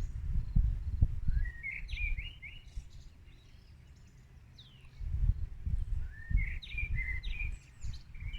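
A wild songbird sings two short phrases of rising and trilling notes, about four seconds apart, over an uneven low rumble.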